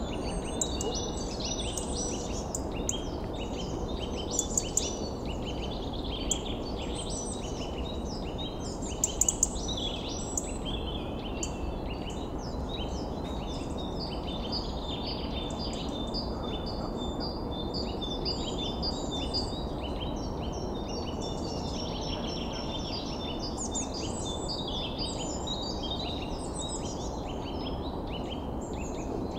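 Many birds chirping and calling at once, short rapid overlapping chirps, over a steady low rushing noise. A few sharp clicks stand out, the loudest a quick cluster about nine seconds in.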